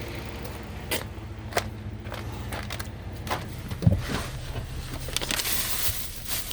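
The 3.5-litre V6 of a 2007 Chrysler 300 idling steadily, with a few sharp clicks and knocks over it. A hiss rises near the end.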